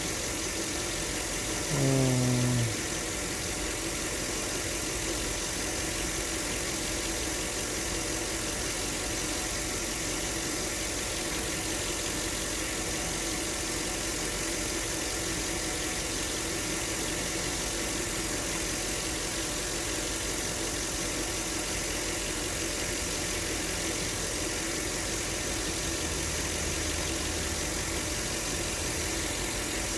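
2005 Land Rover LR3's 4.4-litre V8 engine idling steadily.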